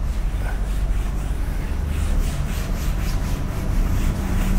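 A classroom board being wiped with a duster: quick back-and-forth rubbing strokes, about four a second.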